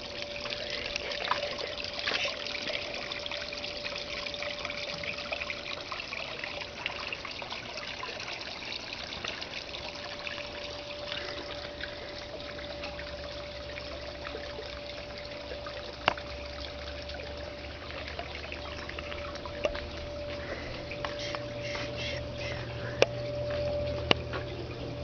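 Water trickling steadily over the rocks of a small backyard pond waterfall. A low hum comes in about halfway, and a few sharp clicks sound near the end.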